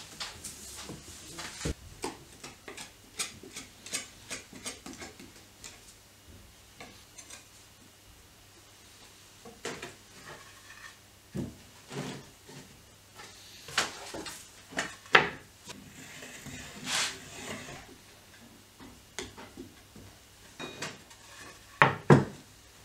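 Glued wooden strips knocking and clattering against each other and the wooden workbench as they are stacked and squared into a laminated block, with scattered sharp knocks and some rubbing; the loudest knocks come near the end.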